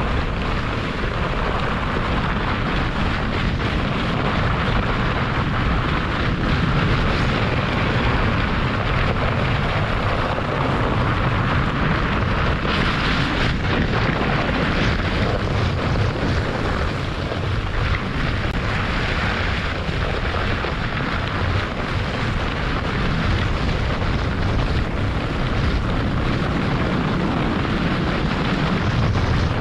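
German Luge 115 toboggan's runners sliding and scraping steadily over the packed snow of a sled run at speed, with wind rushing over the microphone.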